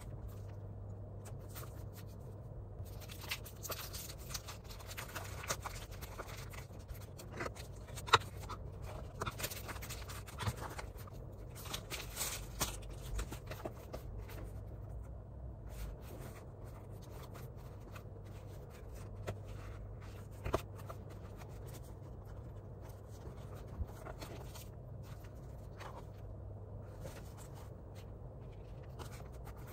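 Quiet handling of a cardboard parcel and loose paper sheets: soft rustles, scrapes and small taps scattered throughout, the sharpest about 8 s in, over a faint low steady hum.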